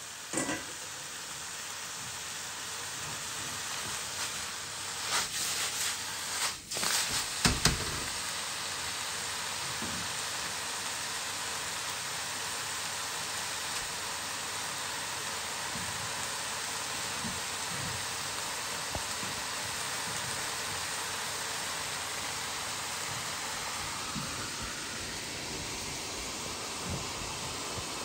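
Beef slices frying in a wok over a portable gas burner, with a steady sizzling hiss. A few sharp knocks come between about four and eight seconds in.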